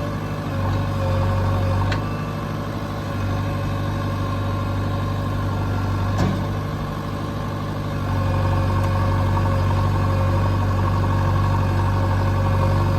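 Heavy diesel engine of the loading machinery running steadily at low revs, its low hum easing off and then coming back up about eight seconds in. A sharp knock about six seconds in.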